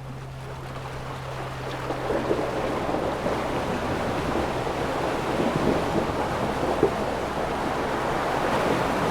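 Ocean waves washing in, the surf growing louder from about two seconds in and rising and falling in swells.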